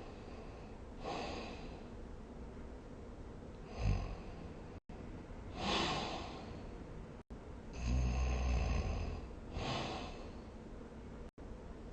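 A sleeping person snoring, a breath sound about every two seconds; the longest and deepest snore comes about eight seconds in and lasts about a second. The sound drops out completely three times, each for an instant.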